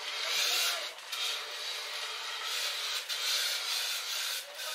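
Handheld fire extinguisher spraying with a hiss, in about three long bursts with brief breaks between.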